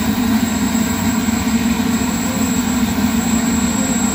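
Radio-controlled model jet's turbine engine running steadily while the jet taxis: a loud, unbroken rush with a constant high whine.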